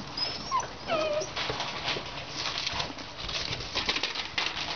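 Pit bull puppies whimpering, with several short high whines in the first second or so, over the crackle of newspaper under their paws.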